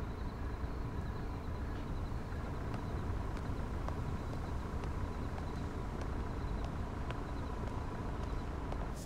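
Steady low rumble with a faint steady hum above it and a few soft clicks scattered through.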